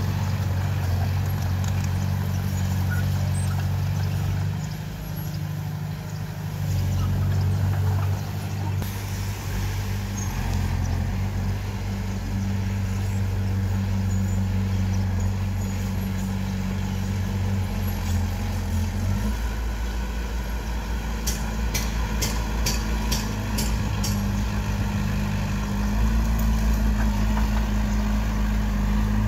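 Heavy-equipment diesel engine running, its pitch and load shifting several times as the machine works. About three quarters of the way through there is a quick run of sharp metallic clanks.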